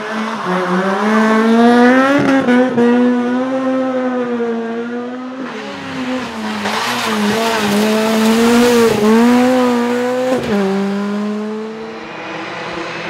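Rally car engine held at high revs, its pitch dipping sharply and briefly several times before recovering, with a louder rush of noise in the middle.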